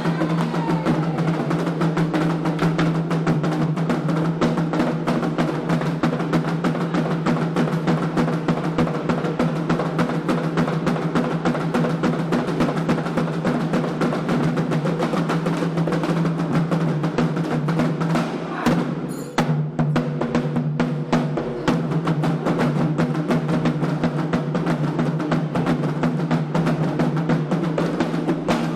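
Candomblé ritual drumming: a fast, steady rhythm of hand drums, typically atabaques, with a brief break about nineteen seconds in.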